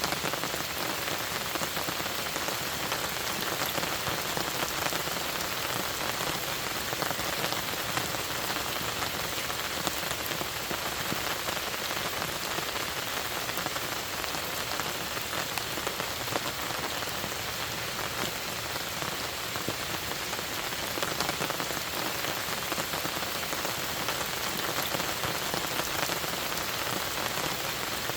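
Steady rain falling, a continuous hiss dotted with many small individual drop ticks.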